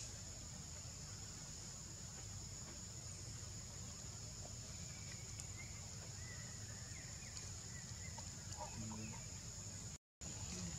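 Outdoor ambience: a steady high-pitched insect drone over a low rumble, with a few faint bird chirps in the middle. The sound cuts out for a moment near the end.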